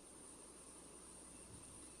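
Near silence between gobbles: only a faint, steady background hiss.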